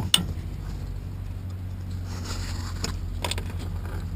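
A few sharp plastic clicks and light scraping from hands working at wiring connectors inside a car door, over a steady low hum.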